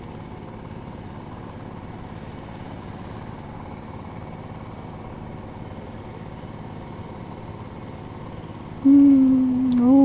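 Distant two-wheel hand tractor engine running steadily in the rice paddy. Near the end a voice starts abruptly with a loud, drawn-out held sound.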